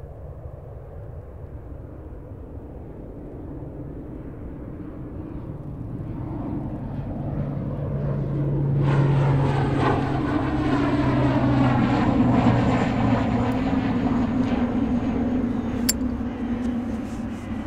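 An aircraft flying past: a rumble that swells to its loudest a little past halfway and then fades away. Near the end there is one sharp metallic click from a flip-top lighter.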